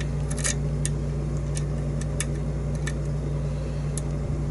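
Light, irregular metallic clicks of a lock pick working the pin stacks of the Bearsback 'No Load' challenge lock during single-pin picking, about eight clicks unevenly spaced, over a steady low hum.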